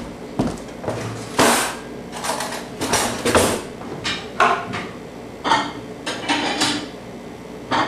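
Irregular clattering and knocking of kitchen objects being handled, some hits with a short clinking ring, about a dozen in all.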